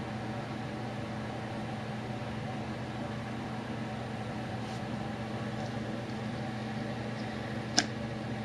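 Steady hum throughout, with one sharp click near the end as a hand flicks the fan propeller on the magnetically levitated shaft to set it spinning again.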